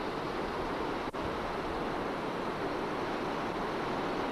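Floodwater of the Beas river rushing steadily over a boulder bed. The sound drops out briefly about a second in.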